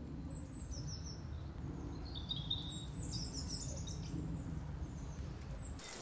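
Small birds chirping in several short bursts of high, quick notes over a low, steady background rumble.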